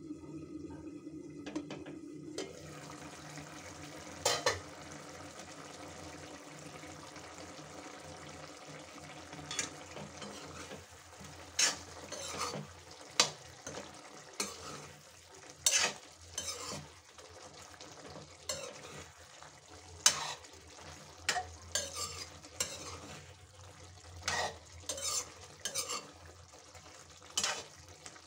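Drumstick masala frying in an aluminium kadai: a steady sizzle that grows plainly louder about two seconds in, with a single metal clank a couple of seconds later. From about eleven seconds on, a metal spoon stirs and scrapes the pan, making repeated sharp clinks against the aluminium.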